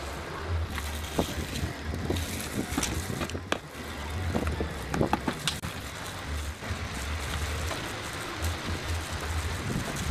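Wind buffeting the microphone as an uneven low rumble, with scattered light clicks and knocks.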